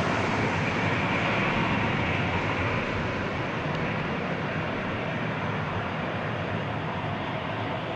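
Jet engines of an Icelandair Boeing 757 on final approach: a steady jet rush that slowly fades as the airliner flares over the runway, just before touchdown.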